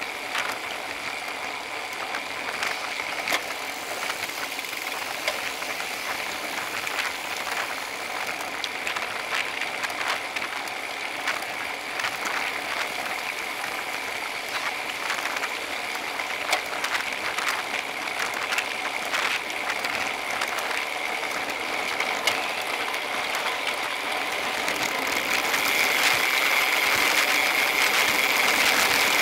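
A road bike riding at speed, heard through a bike-mounted Cycliq camera: irregular rattling clicks and ticks from the bike over steady road and wind noise, which grows louder near the end.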